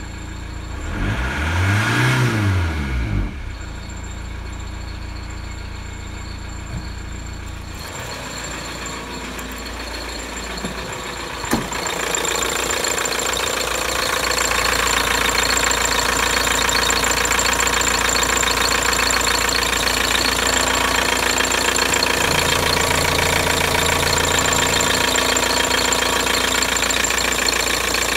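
Volkswagen Passat B4's 1.9 TDI (1Z) four-cylinder turbodiesel running, heard first from inside the car: one throttle blip about two seconds in, rising and falling, then a steady idle. From about twelve seconds in it is heard under the open bonnet, a louder, steady idle.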